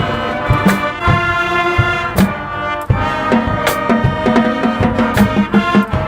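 Marching band playing: brass horns holding pitched lines over a steady beat of marching drums with sharp cymbal crashes.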